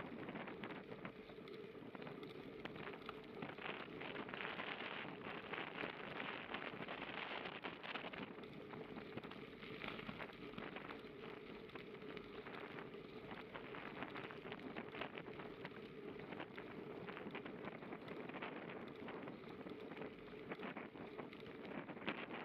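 Bicycle tyres rolling over a fine crushed-stone path: a steady crackling crunch of grit under the wheels.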